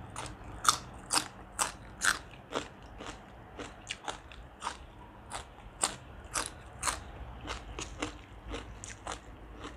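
Close-miked crunchy chewing of a raw green vegetable stalk, with sharp crunches about twice a second.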